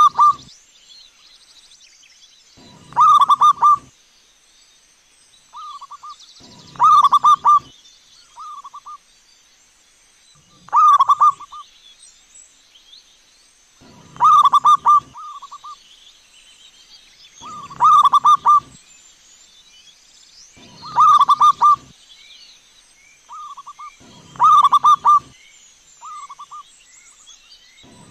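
Zebra dove (perkutut) cooing: its rapid, warbling song phrase repeats every three and a half to four seconds, with softer, shorter coos in between. Faint high chirps sound in the background.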